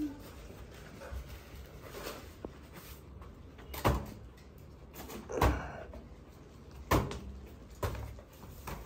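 Four dull knocks or thumps, roughly a second apart, beginning about halfway through.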